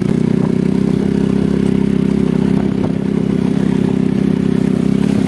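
Motorcycle engine running at a steady speed while riding over a rough, rocky dirt track, with light clatter from the bike on the stones.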